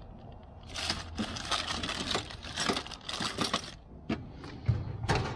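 Rummaging through a metal tool-chest drawer: tools, small hardware and a plastic bag of parts clattering and rattling in quick clusters, then a drawer sliding with a low thump near the end.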